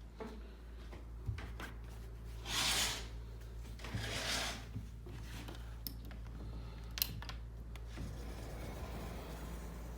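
Handling noises over a steady low hum: scattered clicks and knocks, and two brief rustling swishes.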